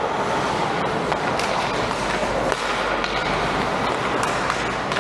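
Steady noise of an ice hockey game in a rink, with a few faint sharp clicks about one and a half, two and a half and four seconds in.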